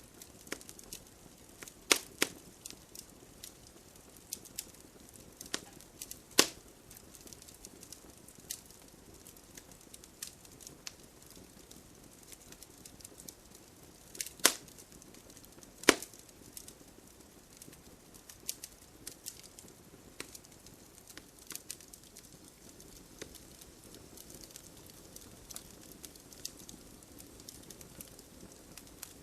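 Wood campfire crackling: a steady scatter of small snaps and pops over a faint hiss, with a few louder sharp cracks about 2, 6, 14 and 16 seconds in.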